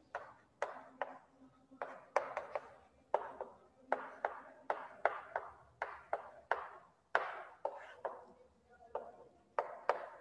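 Chalk writing on a chalkboard: an irregular run of sharp taps and short scratching strokes, about two a second, as letters are written.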